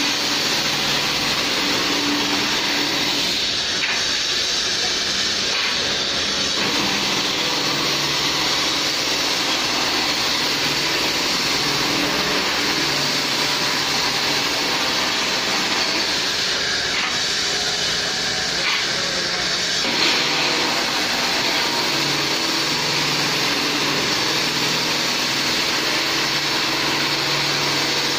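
Hand-guided stone polishing machine running: its electric motor hums steadily under the hiss and grind of the spinning polishing head on wet stone. The grinding sound changes briefly twice as the head is moved across the stone.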